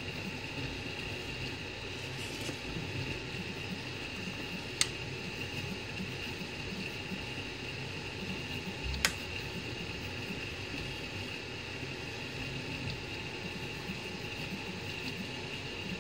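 3D printer running a print: a steady whir with a constant high whine from the print head's cooling fans, over an uneven low hum from the motors moving the head. Two sharp clicks come about five seconds in and again about nine seconds in.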